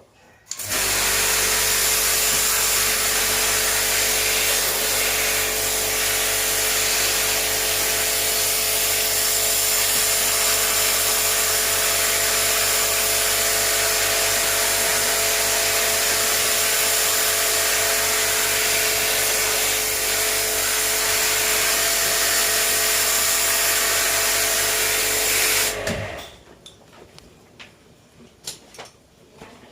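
A small electric pressure washer runs steadily: a motor hum under a loud spray hiss. It starts about half a second in and cuts off near the end.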